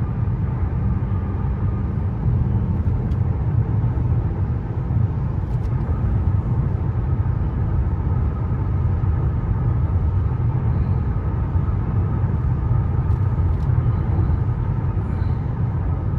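Steady low road and tyre rumble with engine drone inside the cabin of a Mercedes-Benz S580 cruising at highway speed.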